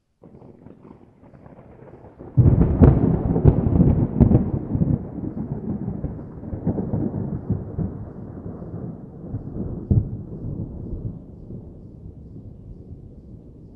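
Thunderclap: a faint low rumble builds, then a loud crash with several sharp cracks about two seconds in, followed by a long rolling rumble that slowly fades.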